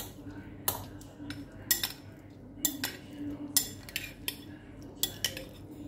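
Metal spoon stirring diced salad in a glass bowl, clinking against the glass in a dozen or so irregular taps.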